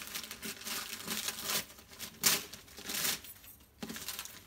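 Wrapping paper crinkling and tearing as a wrapped gift box is opened by hand: a run of irregular rustles with a louder burst about two seconds in.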